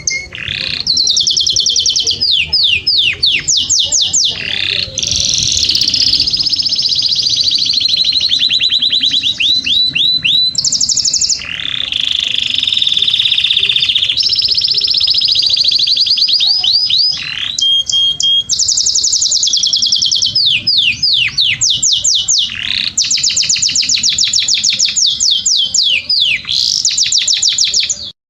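Domestic canary singing a loud, continuous song of rapid trills and rolls, switching to a new phrase every second or two. It cuts off suddenly at the very end.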